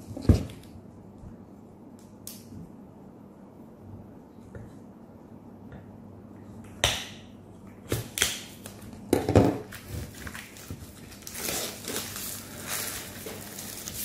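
Plastic wrapping film cut with a knife and peeled off a small dehumidifier: a sharp knock just after the start, scattered clicks and short scrapes through the middle, then crinkling plastic over the last few seconds.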